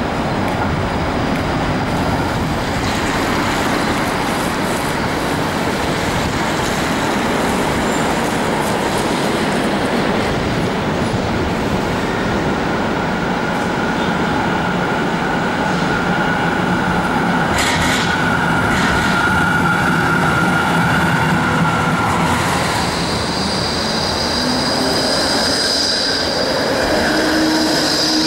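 Melbourne trams running on street track: a continuous rumble of wheels on rail, with a steady high squeal from about halfway to about three quarters of the way through, and a higher squeal near the end as a tram passes close by.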